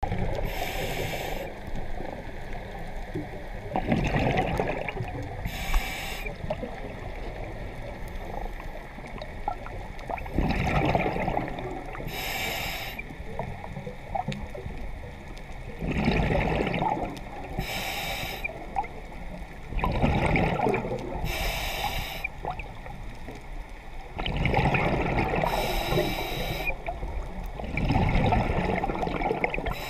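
Scuba diver breathing through a regulator underwater: a short hiss of inhaled air, then a gurgling rumble of exhaled bubbles, repeating about every four to five seconds, about six breaths in all.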